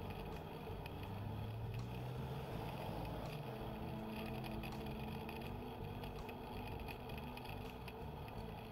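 Steady riding noise from a mountain bike: an even rumble under a low engine-like hum, with faint scattered ticks.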